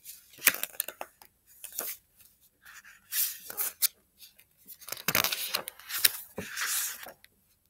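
Pages of a picture book being turned and handled: several papery swishes and rustles, with a few sharp taps.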